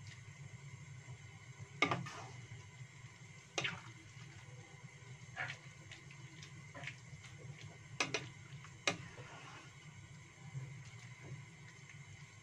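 A spatula knocking and scraping against a wok, about half a dozen sharp clicks spread over several seconds, while noodles and greens are stirred in simmering broth. A steady low hum runs underneath.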